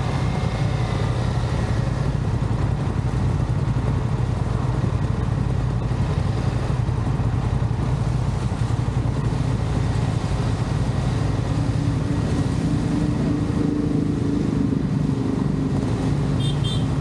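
Motorcycle engine running steadily while under way, under a constant rush of riding noise. The engine note climbs a little in the last few seconds.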